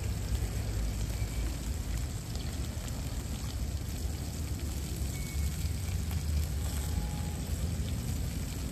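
Steady low rumble of road traffic going round a busy roundabout, swelling and easing a little as vehicles pass, with a fainter even hiss over it.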